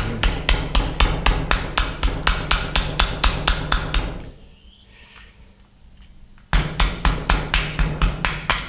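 Rapid, evenly repeated strokes of a tool against a water pump's metal body, about five a second, as hardened scale is cleaned out of it. The strokes stop for about two seconds midway, then start again.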